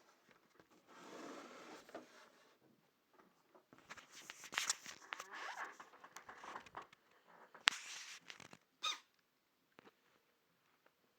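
Cat sneezing: a string of short, breathy bursts and clicks, with a brief high-pitched one near the end.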